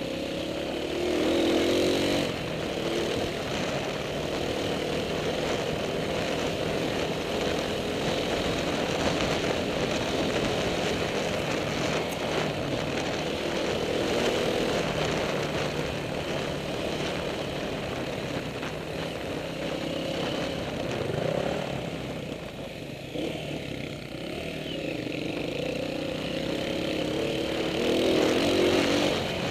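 Honda CRF230 dirt bike's single-cylinder four-stroke engine running under way on a trail ride, its revs rising and falling with the throttle. It surges louder near the start and again near the end, and eases off for a few seconds past two-thirds of the way through.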